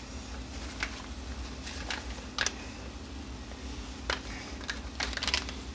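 Paper seasoning packet crinkling in short, scattered crackles as chili mix is shaken out of it onto browned ground beef, over a steady low hum.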